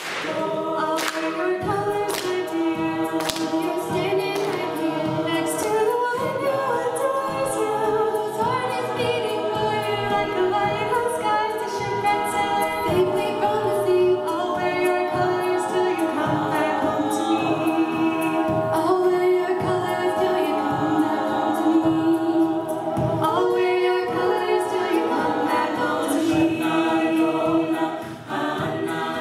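Mixed-voice a cappella group singing a pop song, a female lead voice over sustained backing harmonies, with sharp percussive clicks among the voices.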